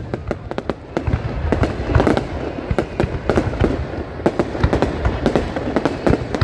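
Aerial fireworks display: rapid, irregular bangs of bursting shells, dozens overlapping, over a low booming rumble.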